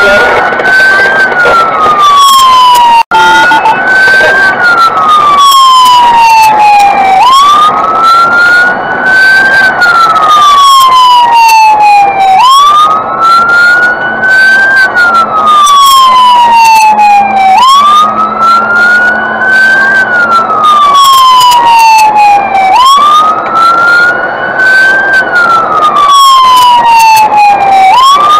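Fire engine siren wailing. Each cycle rises quickly in pitch and falls slowly, repeating about every five seconds, with a momentary break about three seconds in.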